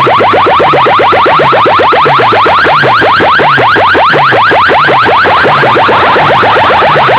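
Loud electronic siren-like effect through a DJ sound system: fast rising chirps, about eight a second, over a repeating low bass figure.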